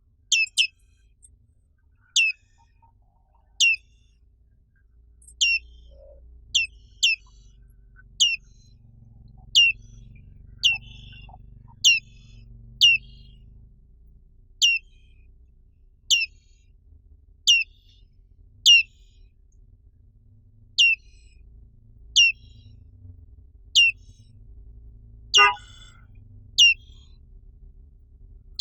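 Black-capped white-eye (Zosterops atricapilla) giving short, high calls over and over, each a quick downward sweep, spaced unevenly about a second apart. Near the end, one call comes with a brief, lower-pitched sound.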